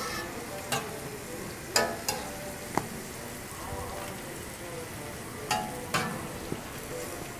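Food sizzling steadily on a hot flat griddle, with about six sharp metal clinks and taps scattered through.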